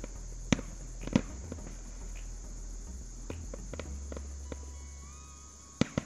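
Fireworks going off: two sharp bangs about half a second and a second in, scattered smaller pops and crackles, and two more bangs in quick succession near the end. Under them runs a steady high chirring of crickets.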